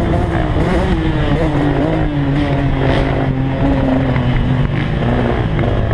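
2014 KTM 150 XC two-stroke single-cylinder dirt bike engine running, its pitch falling over the first two seconds and then holding steady.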